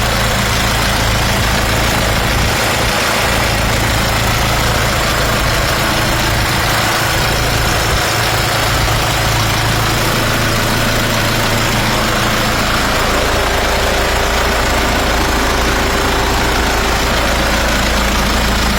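Nissan Patrol's four-cylinder ZD30 3.0-litre diesel engine running steadily, freshly top-overhauled, with no misfire or stumble.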